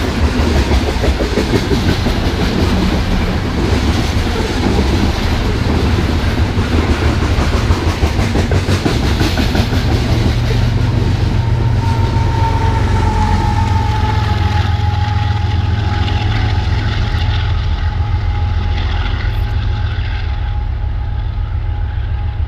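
Freight train of loaded crude-oil tank cars rolling past at close range, wheels clicking over the rail joints under a heavy rumble. About halfway through, a steady high whine sets in and drifts slightly lower. The noise thins out near the end as the last cars go by.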